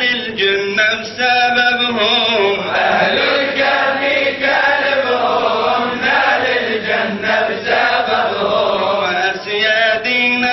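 A man chanting a Sufi kaside (Islamic devotional poem) without instruments, in long wavering held phrases.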